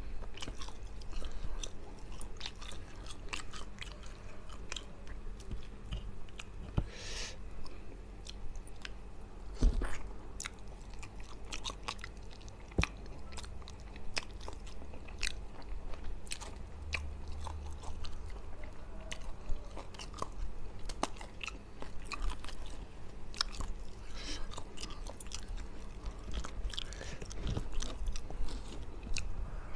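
A person chewing and biting food eaten by hand, fried fish in chili sambal with rice, picked up close by a clip-on microphone, with irregular sharp clicks throughout. He gnaws flesh off the fish's backbone, and there is a short hissy noise about seven seconds in.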